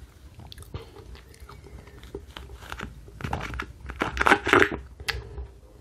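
Sipping an iced berry drink through a straw, with slurping that gets louder about three seconds in as the cup nears empty.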